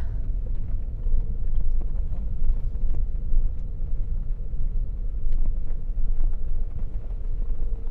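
Low, steady rumble of a car driving on an unpaved dirt road, heard from inside the cabin: tyre and road noise with the engine beneath it.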